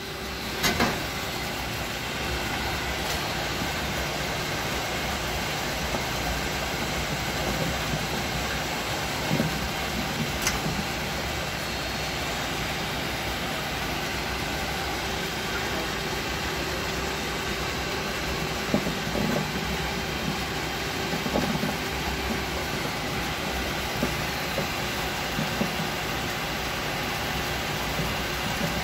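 Dewatering screw press running steadily with a constant hum as it pushes dewatered press mud and kitchen waste out of its outlet. There is a sharp click about a second in and another about ten seconds in, and scattered dull knocks.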